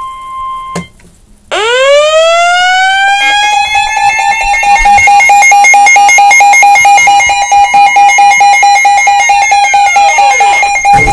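A siren winds up to a steady wail, holds, and winds down near the end. From about three seconds in, a rapidly pulsing alarm tone sounds over it and keeps going after the siren has died away.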